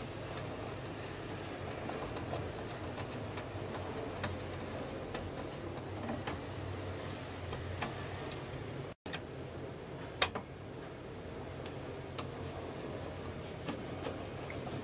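Screwdriver turning screws into an audio receiver's sheet-metal chassis: scattered small clicks and scrapes, the sharpest about ten seconds in, over a steady low hum.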